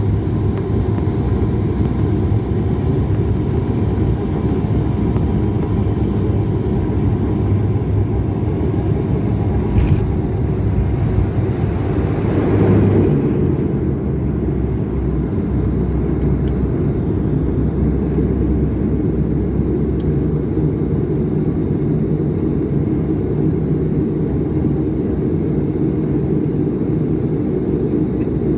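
Turboprop airliner's engines and propellers droning steadily, heard inside the cabin, as the plane rolls along the runway on its main wheels. A short swell comes near the middle, after which the hiss fades and the drone settles a little lower.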